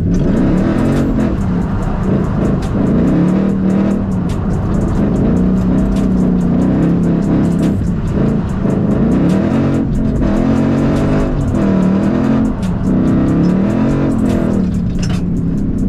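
Ford S550 Mustang engine revving up and down again and again, on and off the throttle as the car drifts, under background music with a quick steady beat.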